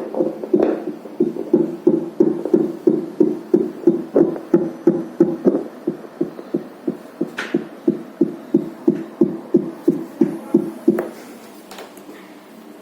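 Fetal Doppler's loudspeaker playing a simulated fetal heartbeat at the 180 beats-per-minute test point: even whooshing pulses about three a second, stopping about eleven seconds in.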